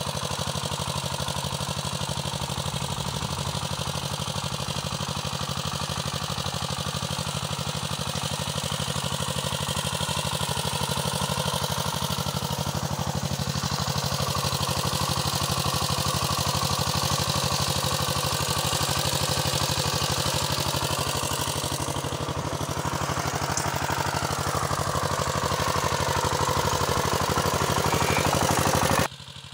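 Walking tractor engine running steadily under load while ploughing, with a fast, even firing rhythm; it cuts off suddenly just before the end.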